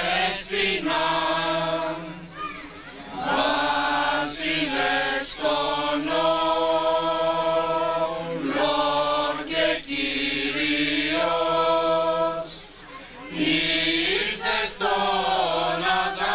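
A group of people singing together in a slow, chant-like melody, with men's voices at the front. The phrases use long held notes over a steady lower held tone and break for breath about two seconds in and again about thirteen seconds in.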